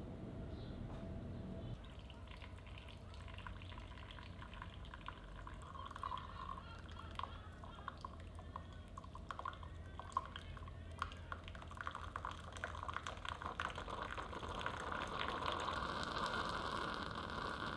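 Liquid pouring and dripping, with many small clicks, growing louder toward the end and stopping abruptly.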